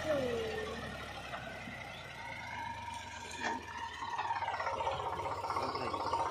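Eicher 485 tractor's three-cylinder diesel engine running under load while it pulls a cultivator through soil, a steady low chugging that grows louder from a little past the middle.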